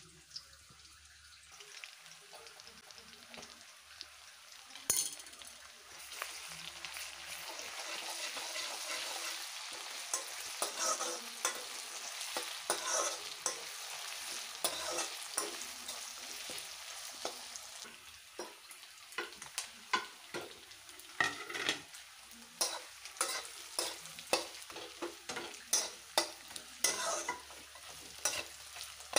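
Pigeon meat and potato pieces frying in hot oil in a kadai, sizzling steadily while a wooden spatula stirs and scrapes the pan. The sizzle builds over the first several seconds and eases a little later on, while the sharp scrapes and knocks of the spatula come more often in the second half.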